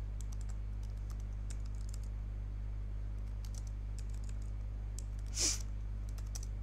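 Slow, sparse keystrokes on a computer keyboard, irregularly spaced, over a steady low electrical hum. A short breathy whoosh about five and a half seconds in is the loudest sound.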